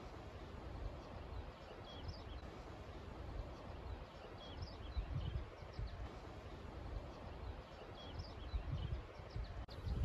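Small birds chirping and twittering on and off through a steady hiss of wind, with wind gusts rumbling on the microphone, strongest about halfway through and near the end.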